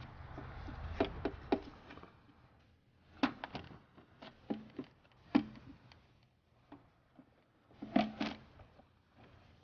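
Scattered clicks and knocks of the plastic upper air filter housing and intake tube being handled and fitted back in place on a Honda/Acura 3.2 L V6, with a louder knock about five seconds in and a pair near the end.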